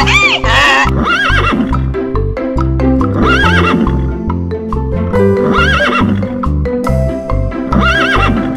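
Horse whinnying four times, about two and a half seconds apart, over background music with a steady beat. A donkey's bray ends in the first second.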